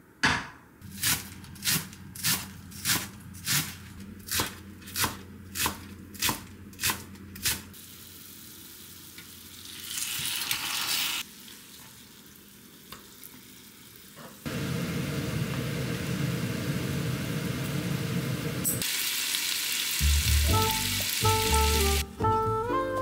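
Marinated beef short ribs sizzling in a hot skillet, the frying growing loud about halfway through. It opens with a run of about a dozen sharp, evenly spaced knocks, a little more than one a second. Music comes in near the end.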